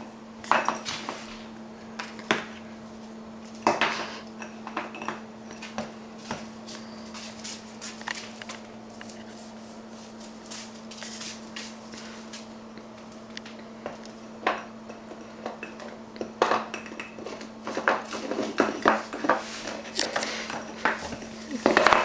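English bulldog puppy chewing on a bowl and knocking it about the tile floor: scattered clinks and clatters, sparse at first and coming thick and fast in the last several seconds. A steady low hum runs underneath.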